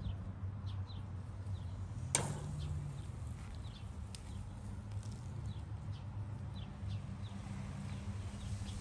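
Small birds chirping in short, high notes scattered throughout, over a low steady hum, with one sharp click about two seconds in.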